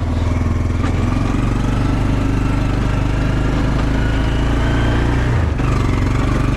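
Small vehicle engine running steadily while towing a loaded firewood trailer, its pitch shifting slightly about a second in and again near the end.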